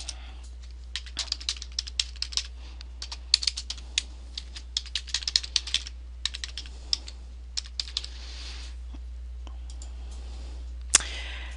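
Computer keyboard being typed on, quick irregular runs of key clicks that stop about two-thirds of the way in, followed by a single click near the end. A steady low hum lies underneath.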